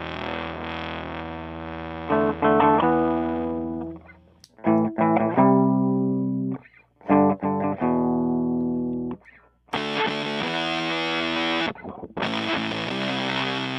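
Electric guitar played through a Power2 fuzz pedal into a Fender Blues Junior amp. A sustained fuzzy chord rings and fades over the first few seconds. Short chord stabs with silent gaps follow in the middle, then a brighter, harsher fuzz tone from about ten seconds in.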